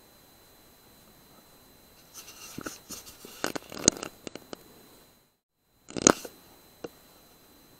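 Scattered rustling, knocking and clicking of an air rifle being handled and swung about, then a single short, sharp crack about six seconds in, followed by a faint click.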